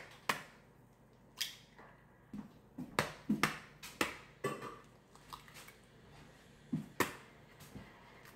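Eggs being cracked on the rim of a mixing bowl and their shells broken open: a series of sharp taps and cracks, a quick cluster about three seconds in and another single crack about seven seconds in.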